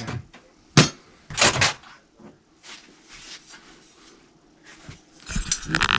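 Tools and a bike wheel being handled on a workbench: a sharp knock about a second in, a short clatter half a second later, then a run of small knocks and rattles near the end.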